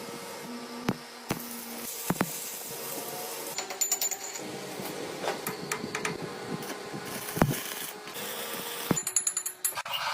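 Metal workshop sounds: a string of sharp metallic clinks and knocks, several ringing briefly, over a steady background hum.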